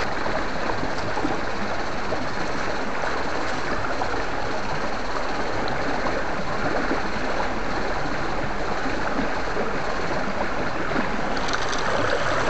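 Shallow rocky stream flowing over stones close to the microphone: a steady, even wash of water noise with no breaks.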